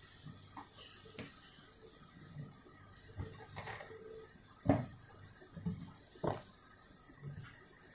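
Soup boiling in a wok, a faint steady bubbling, with a few sharp knocks, the loudest about halfway through and another a little after.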